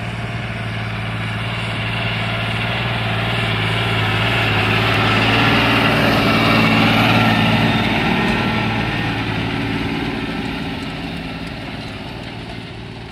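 John Deere 8400 tractor's six-cylinder diesel engine working under load while pulling a one-pass tillage and seed drill past, growing louder to a peak about halfway through and then fading.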